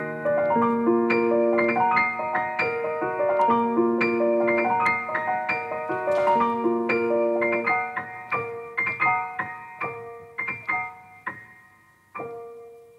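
Piano being played: a flowing run of notes over repeated lower notes that grows steadily softer, closing on a single note struck near the end and left to ring and fade.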